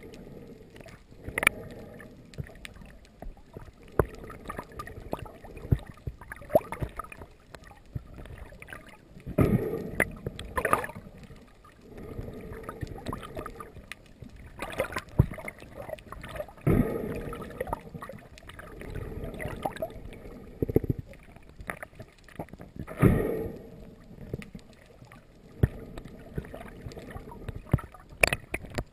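Water sloshing and gurgling around an underwater camera, with louder gushes about every six or seven seconds and scattered sharp clicks.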